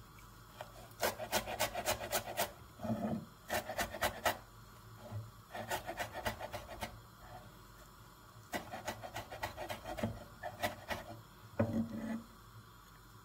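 Chef's knife chopping fresh herbs on a wooden cutting board: quick runs of about six strikes a second on the board, broken by short pauses. Near the end there is a brief scrape as the chopped pile is gathered together.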